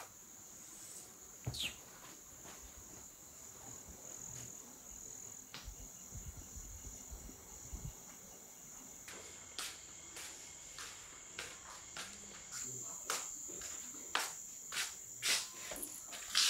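Crickets chirping steadily in a high band, night ambience. Scattered soft clicks and knocks come more often in the second half.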